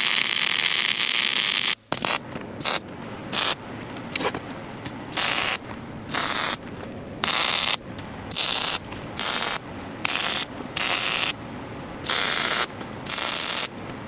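MIG welding arc crackling from a Panasonic Gunslinger welder: one continuous bead for about two seconds, then a string of about a dozen short tack and stitch welds, each under a second, with brief pauses between.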